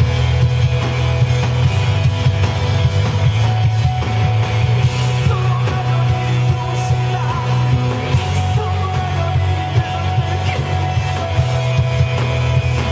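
Live rock band playing an instrumental passage, with electric guitars, bass and drums.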